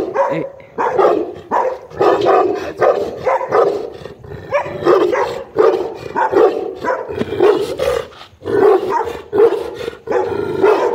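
Large black guard dog barking repeatedly behind a steel gate, about one to two barks a second.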